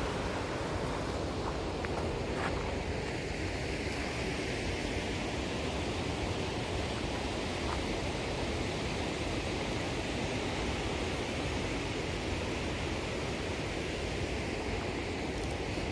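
Steady rushing of water spilling over a small dam's spillway at a lake outlet.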